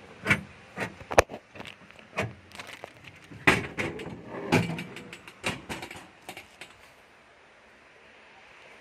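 A run of irregular knocks and clacks, as of something hard being handled, lasting about seven seconds and then stopping, leaving only a low steady hiss.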